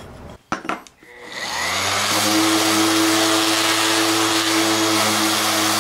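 A couple of sharp knocks, then a bench grinder switched on: its motor spins up over about a second and settles into a steady running hum.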